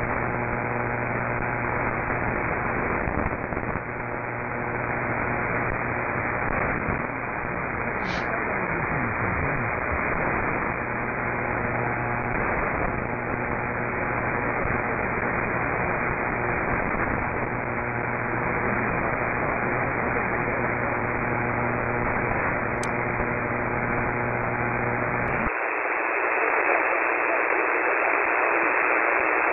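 Shortwave radio static and hiss from a KiwiSDR web receiver tuned to about 2430 kHz, the third harmonic of Radio El Espectador, with steady low hum tones under the noise and no clear programme audio. About 25 seconds in, the hum drops out and the hiss turns brighter as the receiver is switched from AM to sideband mode.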